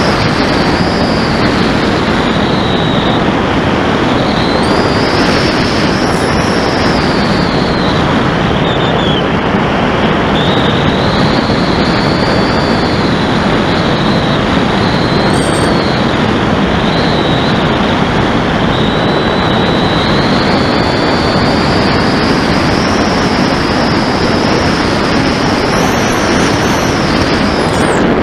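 Steady wind rush over an onboard camera on an RC flying wing, with the whine of its 2217 1300kv brushless motor and 9x6 pusher propeller slowly rising and falling in pitch.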